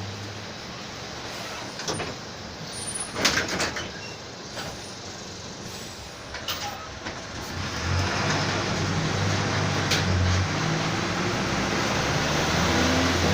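Mercedes-Benz OF-1722M bus's diesel engine running low, with a few sharp clicks and a short hiss in the first seconds. About eight seconds in the engine picks up and runs louder and steadier.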